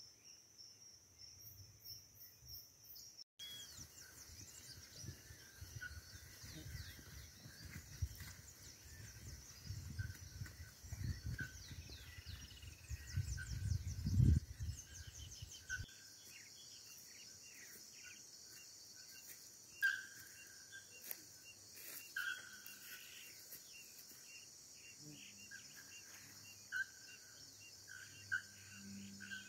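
Tropical forest ambience: insects droning steadily and high, with birds chirping again and again. A low rumble swells through the first half and stops suddenly about halfway.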